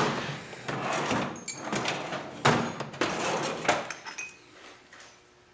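Metal knocks and scraping as a loosened cover on an Ingersoll Rand 2545 compressor pump is worked off, with one sharp knock about halfway through; it goes quieter near the end.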